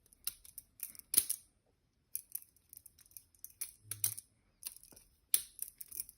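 Balisong (butterfly knife) being flipped: its handles swinging open and shut and clacking against each other and the blade in an irregular series of sharp clicks, the loudest about a second in.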